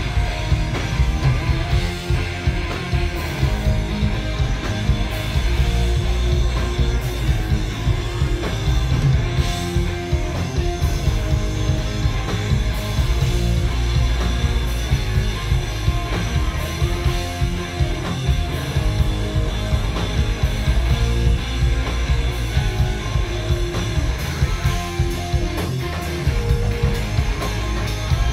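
Live rock band playing loud: two electric guitars, bass guitar and drum kit, with heavy bass and a steady run of drum hits.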